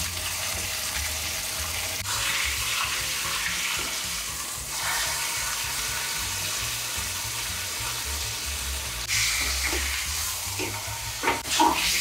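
Beef fillet searing in hot garlic oil in a frying pan, a steady sizzle as the meat is turned and pressed on each side to seal it all over.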